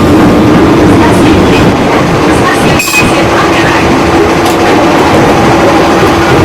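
A JR 205 series electric commuter train running, heard from on board: loud rail and running noise with a steady humming tone that steps slightly higher in pitch about three seconds in. A brief sharp click and dip come at the same point.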